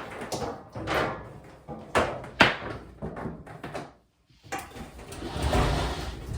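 Scraping and knocking as an electric leaf blower is handled and pushed into a dryer vent, then, after a brief cut to silence, a steady rush of air with a low rumble.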